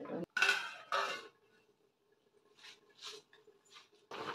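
Wooden spatula stirring and scraping in a pressure cooker of chicken gravy, two short bursts, then a few faint knocks. Near the end a steady bubbling hiss of the gravy boiling starts.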